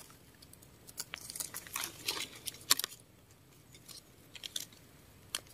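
Faint, scattered crackling and rustling of forest-floor leaf litter being disturbed, with a cluster of small crunches in the first few seconds and a couple more near the end.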